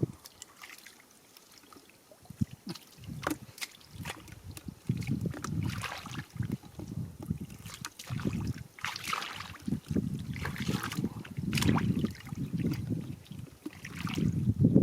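Water sloshing and splashing in irregular bursts, with scattered clicks and knocks; it is quieter for the first few seconds.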